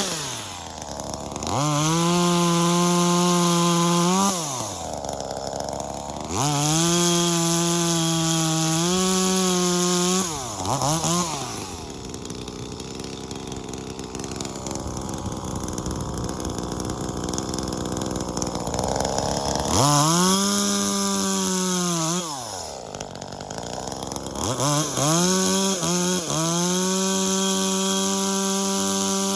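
Two-stroke top-handle chainsaw, a V-Modest 2511T Echo clone, being revved again and again: each time it climbs quickly to a high, steady wide-open-throttle scream, holds for a couple of seconds, then drops back. In the middle it runs for several seconds at a lower, rougher note.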